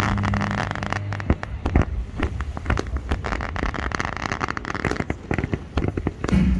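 Fireworks display going off in a dense run of bangs and crackles. A held music note fades out within the first second, and music comes back in near the end.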